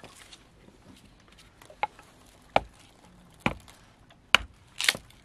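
Sharp knocks of dry split firewood being worked, five in all roughly a second apart, the last one longer and more splintery.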